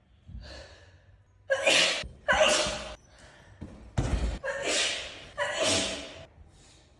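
A woman's sneezing fit: about five loud sneezes in quick succession, two and then, after a short pause, three more, with a fainter breath before the first.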